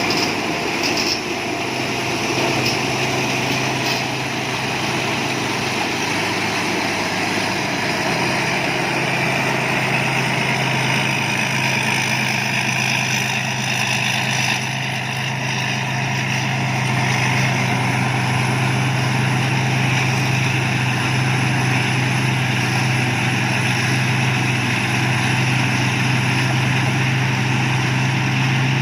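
Thai Seng Yont rice combine harvester running, its engine holding a steady drone, with a couple of light knocks in the first few seconds.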